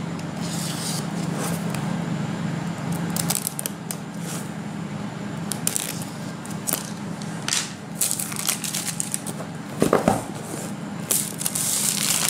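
A utility knife blade scraping along the edges of a boxed iPhone 5 to slit its plastic shrink-wrap, in short scratchy strokes. Near the end the cellophane crinkles as it is peeled off the box.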